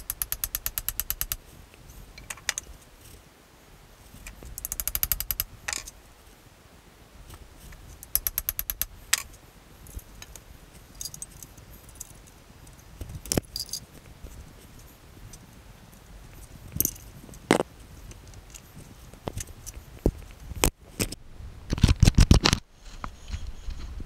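Metal tools and lathe parts being handled while setting up a Craftsman wood lathe. There are short bursts of fast, even clicking, scattered single knocks and clanks, and a louder rattle near the end.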